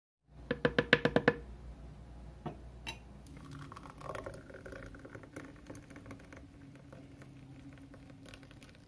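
Utensil working creamy coxinha filling in a pan: a quick run of about ten ringing knocks near the start, then soft wet squishing and light clicks.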